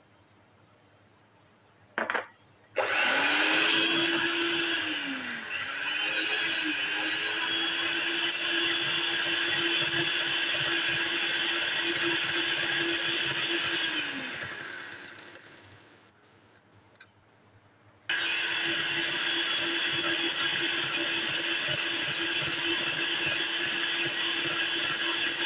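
Electric hand mixer beating eggs and powdered sugar in a glass bowl. It starts about three seconds in, dips in speed twice, runs steadily, then winds down about halfway through; after a few seconds' pause it starts again suddenly and runs on.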